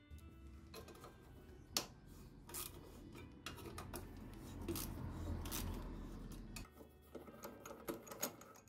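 Hands working on a Honda lawn mower engine: scattered clicks and knocks of the plastic engine cover, metal parts and a socket tool. The sharpest click comes about two seconds in, over a low rumble that stops about two-thirds of the way through.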